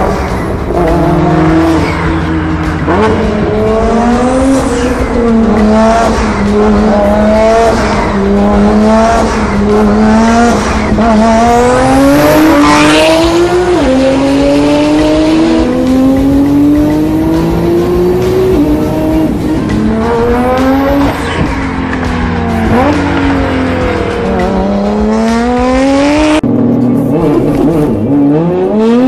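Nissan GT-R engine accelerating hard, its pitch climbing and dropping back at each gear change, over and over through repeated pulls.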